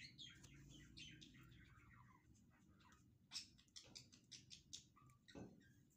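Faint birds chirping, many short chirps and falling notes, over a low steady hum.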